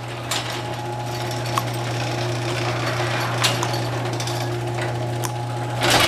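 Chain-drive garage door opener running as it closes the door: a steady motor hum with a few light clicks from the chain and trolley, stopping abruptly near the end as the door reaches closed. The freshly re-tensioned chain runs without slack but dry, which the owner says badly needs lubrication.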